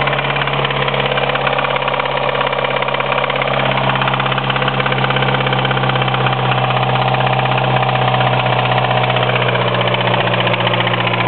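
Mitsubishi 4G63 2.0-litre four-cylinder engine running steadily with a rhythmic rod knock, which the owner suspects comes from a spun connecting-rod bearing.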